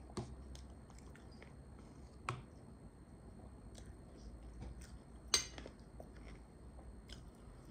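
Close-miked chewing and wet mouth sounds of a person eating sautéed meat. A metal spoon clinks against the dishes three times; the loudest clink, about five seconds in, rings briefly.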